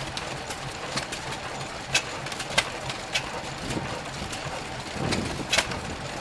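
Large single-cylinder horizontal stationary engine running slowly, its flywheel turning, with sharp beats coming unevenly, about every half second to a second, over a steady low running sound.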